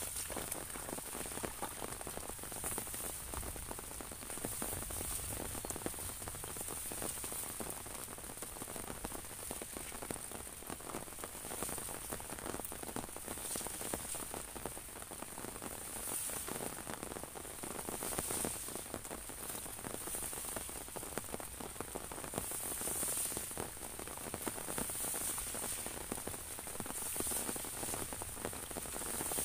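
Steady rain pattering on an umbrella overhead and on the rice paddy around it: an even hiss, thick with fine drop ticks.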